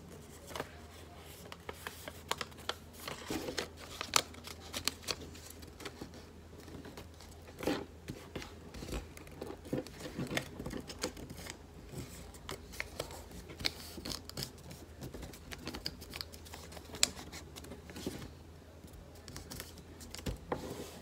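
A sheet of origami paper being folded and creased by hand on a tabletop: irregular rustling and crinkling, with sharp scrapes and clicks as fingers press and run along the folds.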